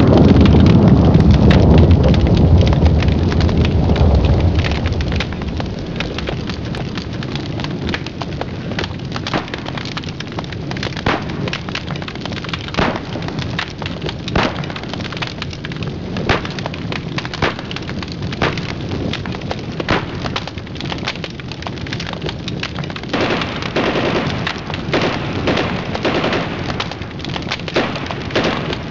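An explosion: a heavy low rumble for the first four to five seconds, then a long run of scattered crackles and pops that grows denser near the end.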